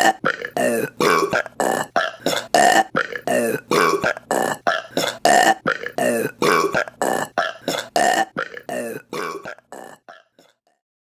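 A woman burping in a fast string of short burps, about three a second in a steady rhythm, fading out and stopping near the end.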